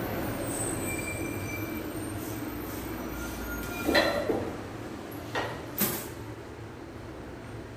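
A train running past on the nearby line, heard as a steady rumble with faint high wheel squeals. Sharp knocks come about four seconds in and twice more near six seconds.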